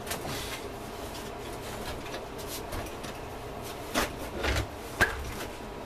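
Rustling and clattering as the opened welding inverter's metal case and wiring are handled and shifted on the bench, with a few sharp knocks in the second half.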